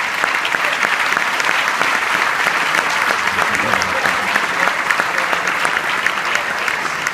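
Loud, dense applause from a large theatre audience, many hands clapping at once and holding steady.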